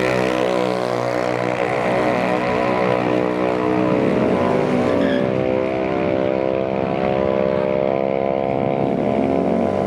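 Drag-racing Yamaha X-Max scooter engines running steadily, with several engine notes overlapping into a drone and small changes in pitch about four seconds in and near the end.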